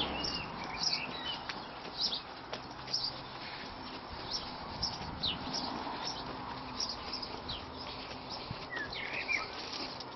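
Small birds chirping in short scattered calls, several together about nine seconds in, over footsteps on a gritty path.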